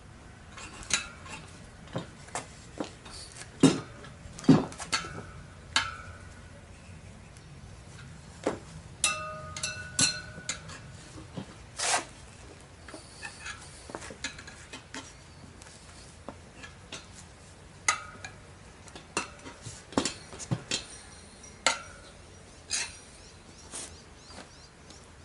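Steel tire levers clinking and scraping against the chrome rim and spokes of a motorcycle wheel while the tire is worked over the rim by hand. The metallic clinks come at irregular intervals and some ring briefly.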